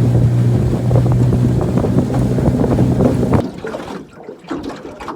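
Outboard motor on a small aluminium dinghy running at a steady pitch, with wind and water noise. It cuts off abruptly about three and a half seconds in, leaving only faint scattered knocks.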